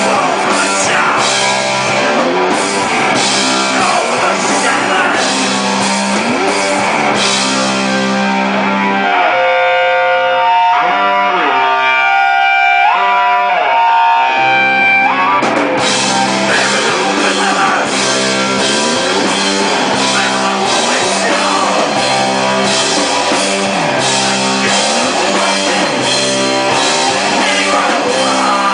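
Hardcore band playing live: distorted electric guitars, bass and drums with crashing cymbals. About a third of the way in the drums drop out and guitar notes ring on their own for several seconds, then the full band comes back in together.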